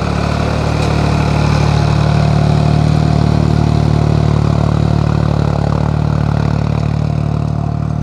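Ford farm tractor's diesel engine running steadily under load as it pulls an implement across the field, a low even drone with a fast pulsing beat. It grows a little louder about two to three seconds in, then eases off slightly.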